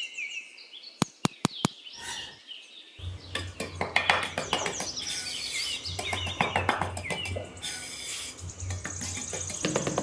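Small steel hand trowel tapping a few times, then scraping and smoothing across a gritty grey cement surface from about three seconds in. Birds chirp over it throughout.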